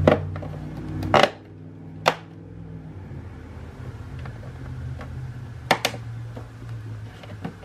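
Plastic hatch of a Traxxas M41 RC boat being set onto the hull and its retaining cord hooked on: a few sharp knocks and clicks, the loudest about a second in and a pair near six seconds, over a low steady hum that fades near the end.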